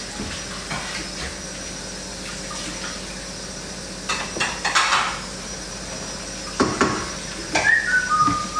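Cookware and utensils clattering as someone handles them while cooking, with a few knocks about four to five seconds in and again near seven seconds. Near the end, a person starts whistling a tune.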